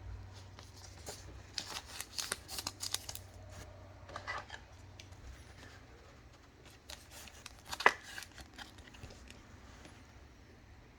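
Baseball trading cards being handled at a table: faint sliding, rustling and small clicks of card stock and packaging, with one sharper tap about eight seconds in.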